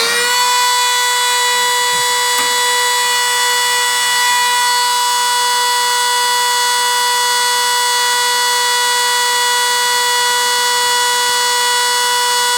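Band saw motor on a variable-frequency drive, running the carbon blade backwards slowly so the teeth can be ground to correct their set. It gives a loud, steady electric whine with many overtones, which finishes rising in pitch just at the start and then holds one note.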